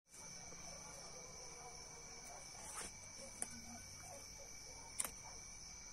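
Night insects chirring steadily in a continuous high trill. A few sharp light clicks from handling wood and a knife come over it, the loudest about five seconds in.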